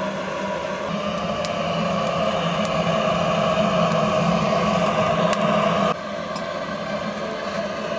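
Handheld butane torch blasting a steady flame into a wood stove's firebox to get firewood that won't catch burning: a steady hiss with a low hum under it, dropping somewhat in level about six seconds in. A few faint clicks come through it.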